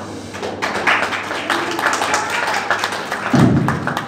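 Audience clapping in a dense patter of claps, with a loud low thump near the end.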